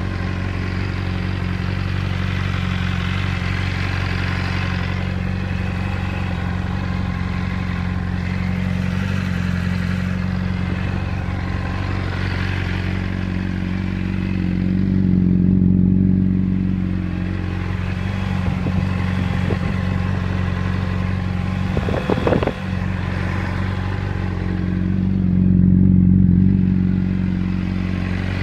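Honda CBR600RR inline-four engine idling steadily with a persistent abnormal mechanical clatter, which is not cured by a new cam chain and manual cam chain tensioner and does not change with the clutch pulled in. The engine swells louder twice, around 15 and 26 seconds in, and a brief sharp rattle comes about 22 seconds in.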